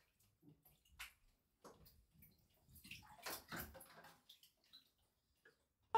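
Faint bathwater sounds: light sloshing and splashing in a filled bathtub, with a few small drips and clicks.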